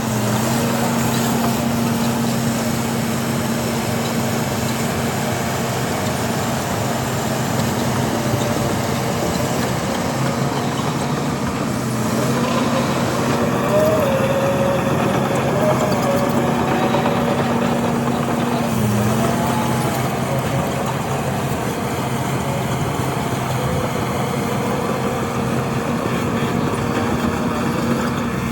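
Heavy earthmoving machines with diesel engines running steadily. A higher whine wavers up and down in pitch in the middle.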